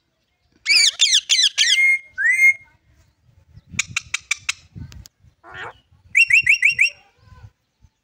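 Green parrot whistling: a quick run of about eight falling notes, a rising whistle, a few sharp clicks, then near the end a burst of five rapid repeated notes.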